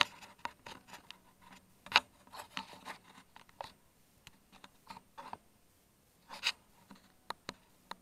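Light handling noise: irregular small clicks, taps and rustles, with sharper taps about two seconds in and around six and a half seconds.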